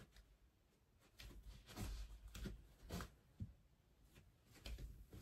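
Near silence in a small room, broken by faint soft thumps and rustles from someone moving about on carpet. They cluster in the middle and again near the end.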